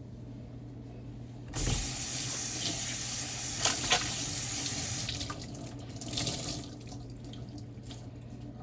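Kitchen tap turned on with a knock about a second and a half in, running water into the sink for a few seconds, then easing off.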